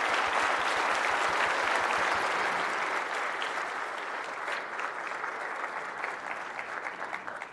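A large audience applauding, the clapping slowly thinning out and dying away near the end.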